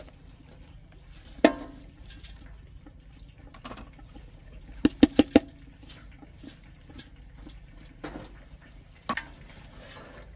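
Drained, soaked rice being tipped from a plastic container into a pot of simmering meat stew, with wet rice dropping in. The container knocks against the pot: once about a second and a half in, four quick times about five seconds in and once more near the end, over a steady low hum.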